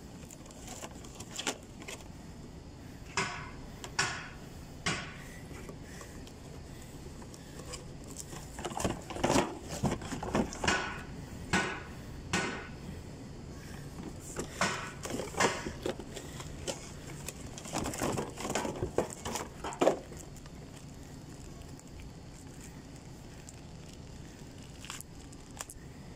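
A new paper oil filter element being unpacked from its cardboard box and plastic wrap: scattered rustles and light knocks, busiest in the middle stretch and ending with a sharper knock.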